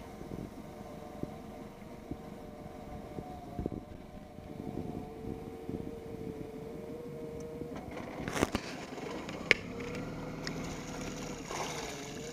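A boat's engine running steadily, over water washing along a wooden boat's hull, with a few sharp knocks about two-thirds of the way through.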